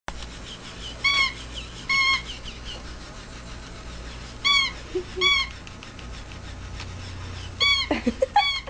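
Plush toy cat's electronic meow: short, high-pitched, identical meows repeating in pairs, three pairs about three seconds apart.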